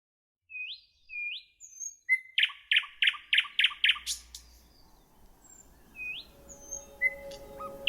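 A bird calling: two short rising whistled notes, then a quick run of about seven loud, even notes, then more rising calls near the end. A faint steady tone comes in near the end.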